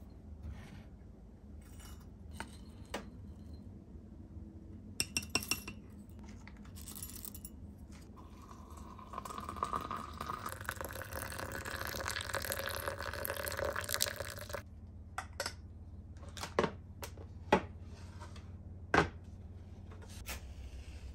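Hot water poured from a kettle into a glass teapot over loose tea and dried orange peel, a steady splashing pour lasting about six seconds. Before and after it come light clinks of glass and several sharp knocks.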